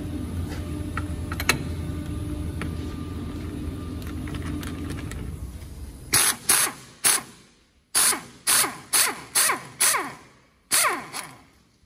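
Würth pneumatic impact wrench hammering on the strut's top mount nut in about ten short bursts, each one winding down in pitch as the trigger is let go, while the coil spring is held in a spring compressor. Before the bursts a steady mechanical hum runs for about five seconds, then fades.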